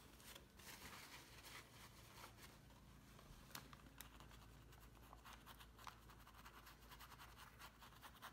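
Faint, scratchy scrubbing of a paintbrush dry-brushing acrylic paint over a textured stucco-medium surface, in short, irregular strokes.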